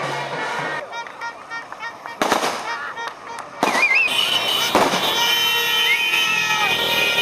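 Firecrackers going off in a few sharp, loud bangs, among whistling and long held horn-like tones from a celebrating crowd.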